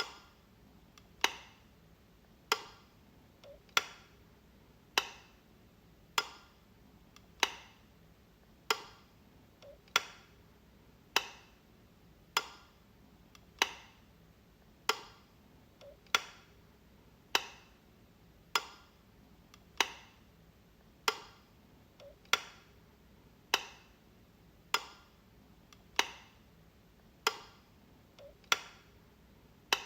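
Light switch flicked over and over: a single sharp click a little under once a second, in an even rhythm, here and there with a faint smaller click just before it.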